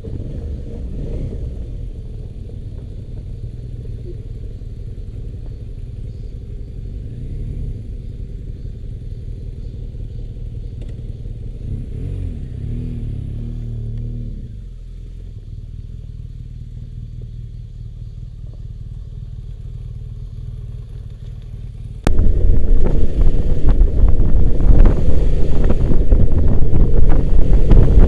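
Motorcycle engine running while riding, its pitch rising and falling with the throttle. About three-quarters of the way through, loud wind buffeting on the microphone suddenly takes over.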